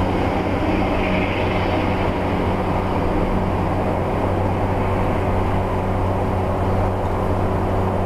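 400 hp Cummins ISL 8.9-litre diesel of a motorhome running steadily under load while climbing a long mountain grade, a constant low drone mixed with road and tyre noise.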